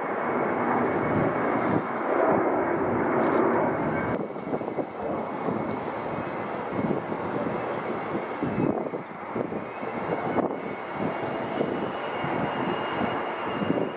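Military fighter jet engines running: a rough, steady rushing noise that swells and dips, with a thin high whine held throughout.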